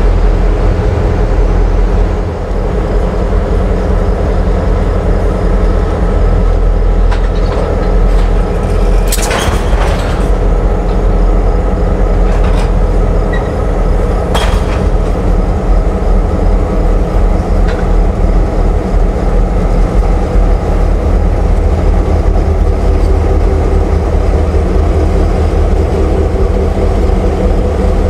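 Norfolk Southern GP38-2 diesel locomotive, its EMD 16-645 two-stroke V16 running steadily as it pulls a freight car past. A few sharp knocks from the moving train are heard in the middle of the run.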